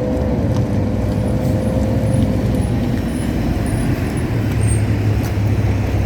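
Road traffic on a city street: a motor vehicle's engine gives a steady low rumble. A whine rides over it, dips in pitch near the start and fades out about two and a half seconds in.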